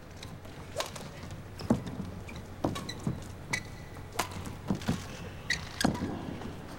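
Badminton rally: rackets striking the shuttlecock back and forth, a sharp hit about every second, with shoes squeaking on the court.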